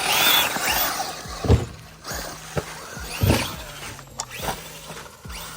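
Electric RC cars' motors whining as they rev up and down over dirt, then several thuds as the cars hit the ground, the loudest about a second and a half in and another a little after three seconds.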